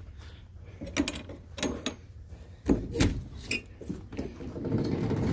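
A string of separate clicks and clanks from the latch of an enclosed cargo trailer's side door as it is unlatched and swung open.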